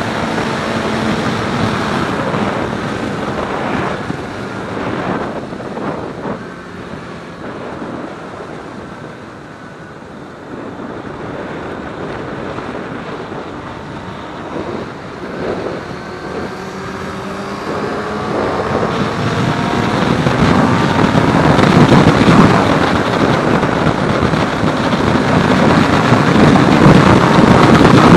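Sport motorcycle engine running under way, its pitch rising and falling through the gears, under heavy wind noise on the helmet-mounted microphone. The engine and wind grow steadily louder over the last third as speed builds.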